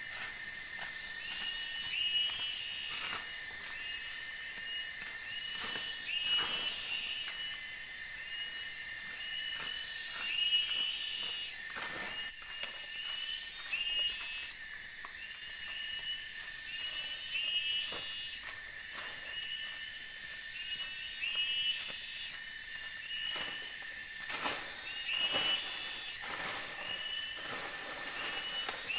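Forest insect chorus: a steady high buzzing hiss with a constant thin whine, over which short chirping calls repeat about once a second and higher buzzes pulse on and off. Scattered soft knocks or clicks come through now and then.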